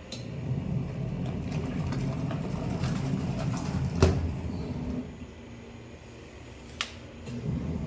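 Washing machine running with a low rumble and a loud knock about four seconds in. It then quietens for a couple of seconds, gives a sharp click, and the rumble comes back.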